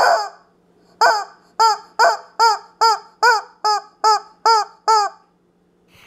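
Pink squeeze-toy rubber chicken squawking again and again, a little over two honks a second, each squawk rising and then falling in pitch. The squawking stops about a second before the end.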